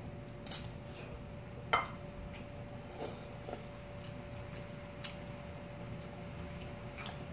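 A spoon and chopsticks clinking and scraping against a ceramic plate and a glass bowl while eating: a handful of short, separate clinks, the sharpest about two seconds in.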